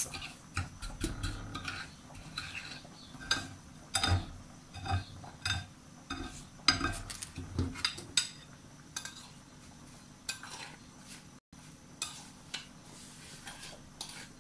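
A metal spoon stirring and scraping a gritty paste of coffee grounds, sugar, lemon and oil on a plate, with irregular clinks of spoon against plate. The strokes come thick and fast at first and grow sparser in the second half.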